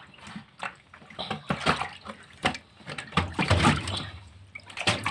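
Water splashing and sloshing, a run of irregular splashes and drips, loudest a little past the middle.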